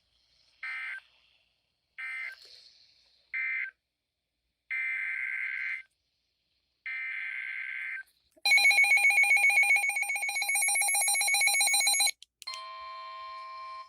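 NOAA Weather Radio EAS data tones: three short screeching digital bursts about a second apart, marking the end of one warning, then two longer bursts of header data for the next. A loud pulsing electronic alarm rings for about four seconds, and then a steady single-pitch alert tone begins near the end.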